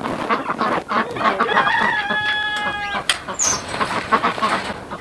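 Chickens clucking in the coop, and a rooster crowing once: a long held note from about one to three seconds in.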